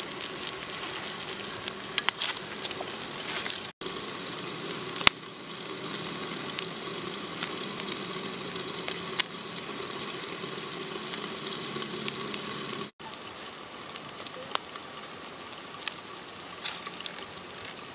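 Covered pot of soft-shell turtle braising over a wood fire, sizzling steadily, with scattered sharp crackles. The sound cuts out briefly twice.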